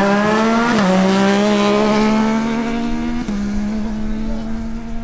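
Two sport motorcycles, a Yamaha MT-09 and a Kawasaki Ninja 600R, accelerating hard from a drag-strip launch. The engine pitch climbs, drops with an upshift about a second in, climbs again with another brief break near the middle, then grows quieter as the bikes pull away.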